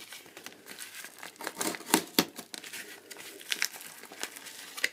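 Small blade of a credit-card multitool knife cutting through thin parcel packaging: irregular crinkling and tearing with scattered crackles, and two sharper snaps about two seconds in.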